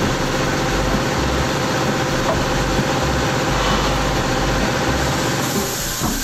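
Aluminum-cutting circular saw machine running steadily, its blade spinning free while the stock is lined up and no cut is being made.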